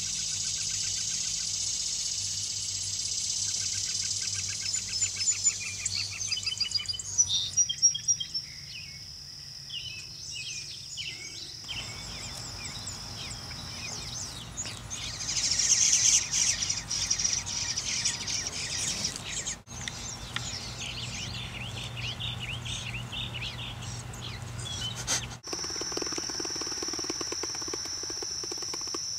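Birds chirping and calling over a steady high-pitched insect buzz, the buzz holding from about 7 to 14 seconds in and again near the end. The sound breaks off abruptly twice, at about 20 and 25 seconds in.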